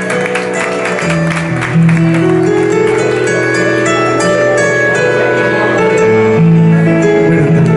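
Korg electronic keyboard playing held chords over a moving bass line, with a little applause dying away in the first second.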